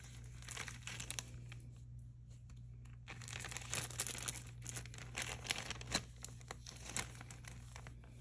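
Plastic bag crinkling and rustling with many quick, irregular crackles as a necklace is slipped into it.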